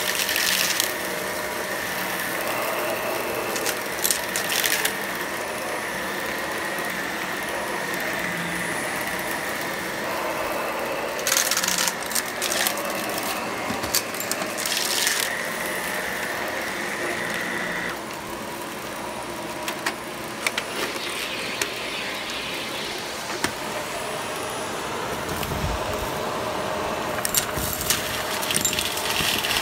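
Shark Professional Lift-Away upright vacuum running steadily on carpet, with bursts of rattling and clicking as hard debris and beads are sucked up. Its high whine drops away a little past halfway through.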